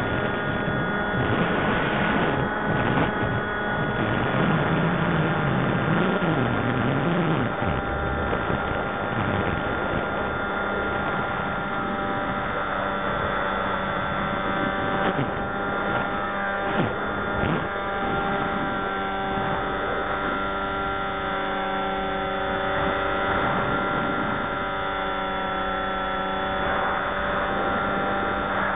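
Electric motor and propeller whine of an FPV radio-controlled aircraft, heard from its onboard camera: a steady hum made of several fixed tones, shifting a little in pitch now and then.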